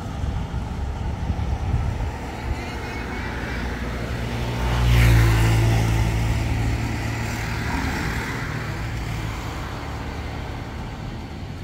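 A motor vehicle driving past on the road, swelling to its loudest about five seconds in and then fading away, over steady traffic noise.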